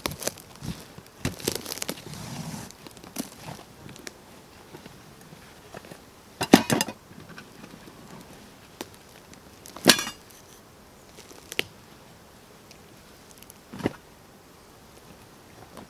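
Canvas rucksack being unpacked by hand: rustling and crinkling of the canvas and gear during the first few seconds, then four separate short knocks and rustles as items are pulled out and set down on the ground, the loudest about six and a half seconds in.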